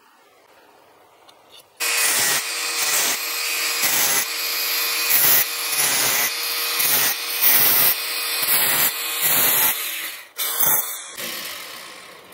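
Angle grinder with a cutting disc slicing slots into a thin 0.5 mm zinc sheet disc, starting about two seconds in: a steady motor whine under a harsh cutting hiss that dips and swells again and again as the disc bites into the metal, dying away near the end.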